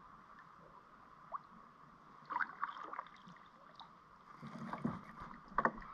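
Light knocks and rattles of a paddle and gear against a plastic fishing kayak's hull: a short run of clicks about two seconds in, then a louder cluster of knocks and thuds near the end.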